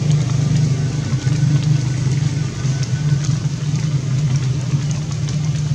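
A steady, loud low drone, like an engine running, with a haze of noise and faint ticks above it.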